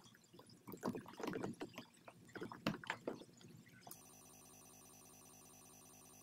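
Irregular plastic clicks, taps and handling noise as hands fit the door-panel courtesy lamp. About four seconds in, these give way abruptly to a steady, even electronic ringing tone.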